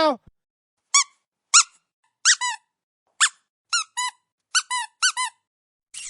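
A squeaky rubber dog toy squeezed over and over, giving about ten short squeaks, several in quick pairs, each bending up and down in pitch.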